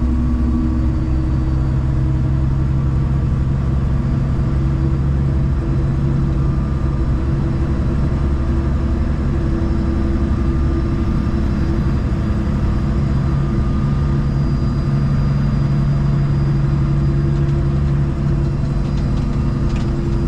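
Kenworth prime mover's diesel engine running steadily at cruise, a low drone heard from inside the cab with the windows wound up.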